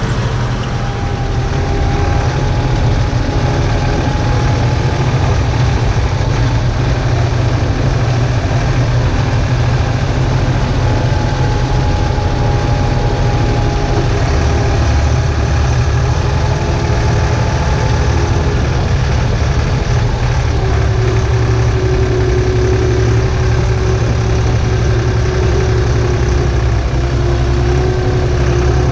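Steyr 964 Turbo tractor's turbo diesel engine running steadily with a low drone, heard from inside the cab while it drives a twin-rotor hay rake. A faint whine rides over it, shifting in pitch part way through.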